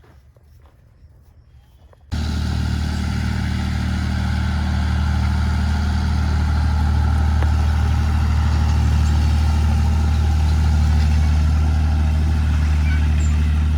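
Tractor engine running steadily at idle, a loud low drone that starts abruptly about two seconds in, after a faint quiet background.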